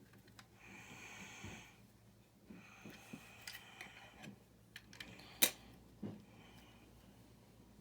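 Plastic building bricks and parts being handled: rustling and light clicks, with one sharp click about five and a half seconds in.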